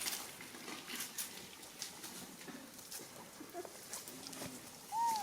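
Faint scattered clicks and rustling, then near the end one short, loud, high call that rises and falls: a monkey's squeak.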